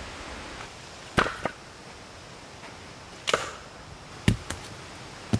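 Footsteps and sharp knocks on a dirt path strewn with twigs, about six short, separate hits spaced irregularly over a faint steady hiss.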